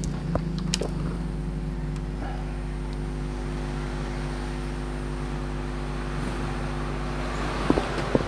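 Steady low electrical hum with a stack of overtones, with a few sharp clicks about a second in and again near the end.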